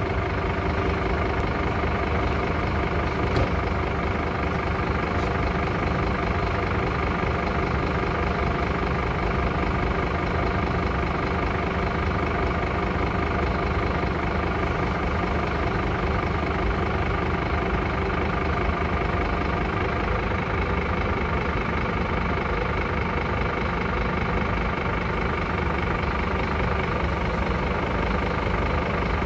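Scania P-series truck's diesel engine idling steadily while its truck-mounted loader crane unfolds on the engine-driven hydraulics.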